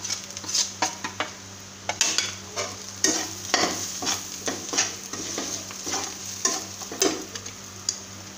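Steel spatula scraping and stirring in a steel kadhai, in irregular strokes about two a second, over onion-garlic masala sizzling in hot oil with fresh spice powder just added.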